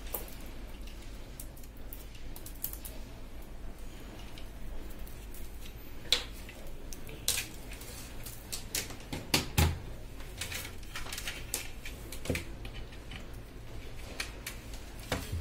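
Hands handling a power adapter cable and a plastic set-top box: scattered clicks and knocks as the cable is unwound and its plug is fitted into the box, a few louder knocks around the middle.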